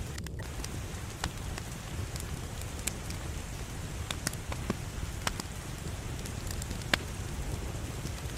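Wood fire in a fireplace burning with a steady low rumble and scattered sharp crackles and pops, the loudest about seven seconds in.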